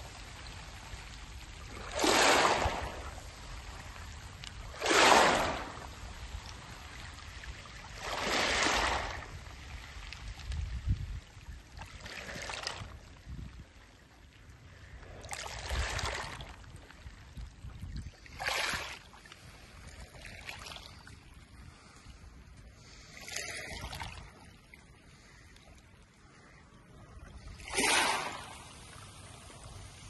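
Small waves lapping onto a pebble beach, about every three seconds a brief rising and falling hiss of water washing over the stones, with a low steady background between.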